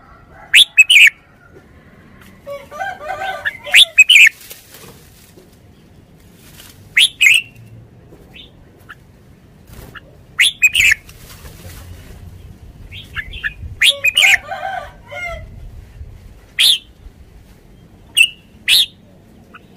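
Caged red-whiskered bulbul singing: short, loud, bright phrases of two or three quick notes, repeated every few seconds. Softer, lower chattering comes in twice between the phrases.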